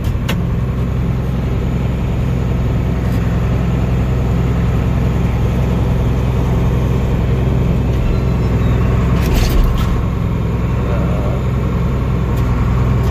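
Tractor engine running steadily under load, heard from inside the cab as a low, even drone while it pulls a row-crop cultivator, with a brief knock about nine and a half seconds in.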